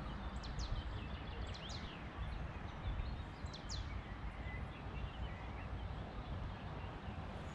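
Birds giving short, high sweeping calls now and then over a steady low rumble.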